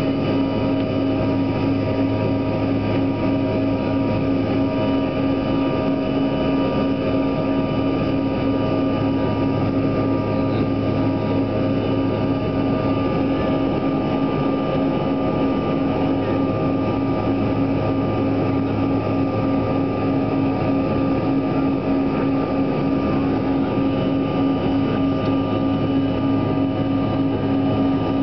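Cabin noise inside a CRJ-200 regional jet climbing after takeoff: the steady drone of its rear-mounted GE CF34 turbofans and rushing air, with a constant hum and whine that do not change.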